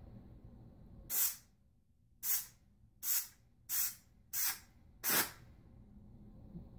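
McCulloch MC1375 steam cleaner's hand-tool nozzle letting out six short, separate bursts of hissing steam, the last a little longer, with quiet between them.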